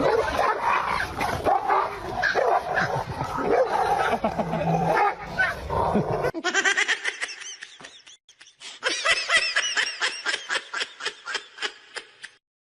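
A dog barking and yelping over a busy mix of sound. After a sudden cut about six seconds in, a run of short high yelps follows, roughly two a second, fading near the end.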